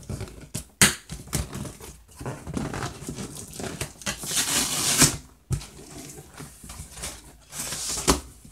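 Cardboard shipping box being opened by hand: flaps handled and packing paper crinkling and rustling in irregular bursts, with a couple of sharp knocks.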